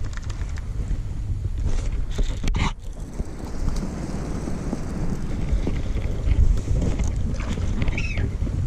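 Wind buffeting the camera microphone, a steady low rumble, with a single knock about three seconds in.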